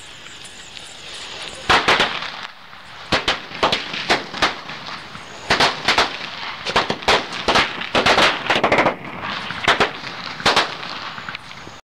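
A 100-wala string of firecrackers going off. A hissing fuse comes first, then irregular sharp bangs in quick clusters from about two seconds in until near the end.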